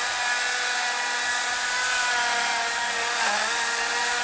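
Ryobi 14-inch 40-volt battery chainsaw running with a steady high whine, its pitch sagging briefly about three seconds in. The chain is mounted backwards, so the saw rubs and burns the wood instead of cutting it.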